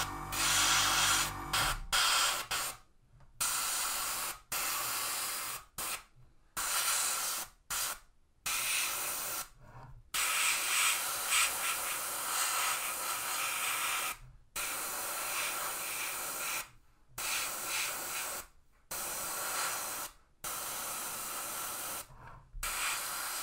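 Gravity-feed airbrush spraying paint onto a plastic scale model, hissing in a run of bursts of one to several seconds, each cut off sharply as the trigger is released.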